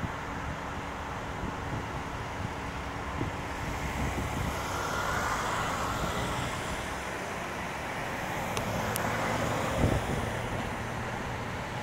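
Steady outdoor road-traffic noise. It swells as a car passes about halfway through, and a short low thump near the end is the loudest moment.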